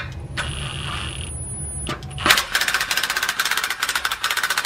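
Cordless impact driver hammering rapidly, starting about two seconds in, as it drives a clutch press's threaded rod to compress a snowmobile secondary clutch's spring under load.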